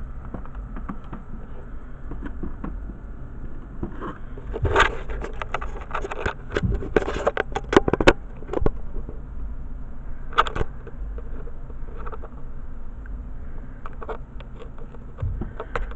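Handling noises: scattered clicks, taps and scrapes over a steady low hum, busiest from about four to nine seconds in, with a few more later.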